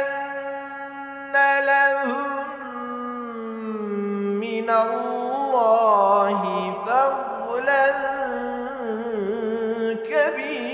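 A solo male voice reciting the Quran in the melodic chanted style (tilawah), drawing out long held notes with ornamented, wavering turns in pitch.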